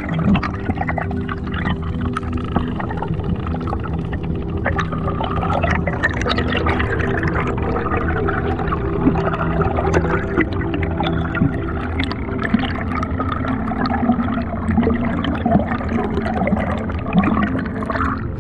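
Underwater sound on an action camera during a dive: water rushing and bubbling with constant small crackles, over a steady low hum. Near the end the camera breaks the surface and the sound changes.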